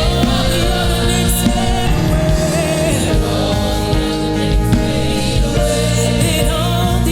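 Gospel song with singing over a full band accompaniment.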